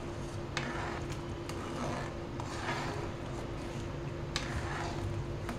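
A few light clicks of a spoon against a pot of boiling dal as the froth is skimmed off, over a steady low hum.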